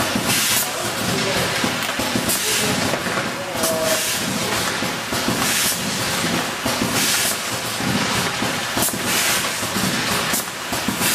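Fruit-packing conveyor line running with a steady clatter, cut by short hisses about once a second.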